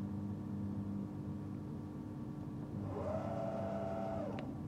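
Steady electrical hum from a Bridgeport Series I CNC milling machine. About three seconds in, the quill's Z-axis drive motor whines up in pitch, runs steadily for about a second and a half, then winds down with a sharp click near the end.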